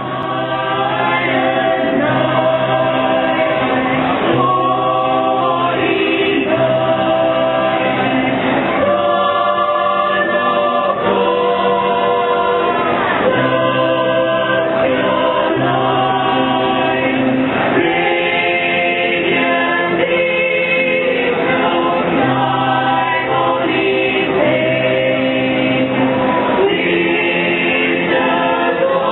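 Choir singing a Christmas carol with instrumental backing, with held notes over a steady bass line.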